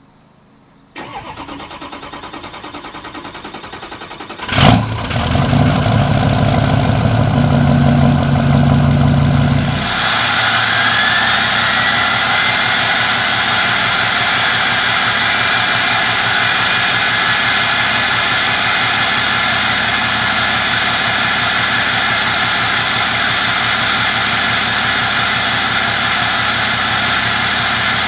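Ford F-250's 6.0L Power Stroke V8 turbodiesel cranking for about three seconds, then catching with a sharp bang. It runs hard and rough for about five seconds, then settles into a steady idle with a rising whine just after. This is a slow, hard start after the truck has sat for about three weeks.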